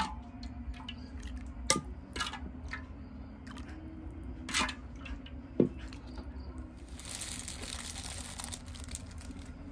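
Handling noises: a few sharp clicks and knocks with some crinkling, over a steady low hum, then about two seconds of rustling hiss near the end.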